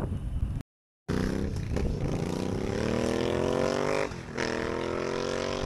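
A motorcycle engine accelerating, its pitch climbing, dipping once about four seconds in and then climbing again. Before it, wind buffets the microphone and cuts off abruptly in an edit.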